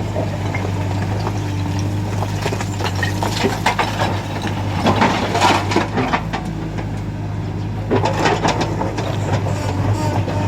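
JCB 3DX backhoe loader's diesel engine running steadily under work, with bursts of clattering knocks from stone being scooped and dropped, about three to six seconds in and again around eight seconds in.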